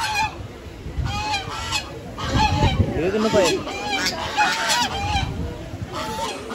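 A flock of white domestic geese honking, many short calls following one another several times a second, with a low rumble around the middle.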